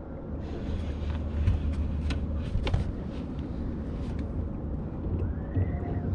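Low, steady rumble of an idling boat motor, with scattered sharp clicks and knocks while a heavy sturgeon rod is reeled in.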